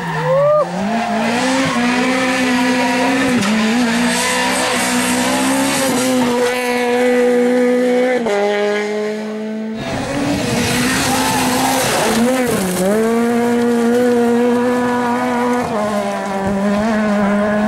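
Peugeot 208 R2 rally car's naturally aspirated 1.6-litre engine held at high revs at full throttle, dipping briefly and picking up again near the start, with a gearshift about eight seconds in. After a cut about ten seconds in, a Ford Fiesta R2 rally car's engine revs hard on gravel and dips and rises again briefly as the driver lifts and gets back on the throttle.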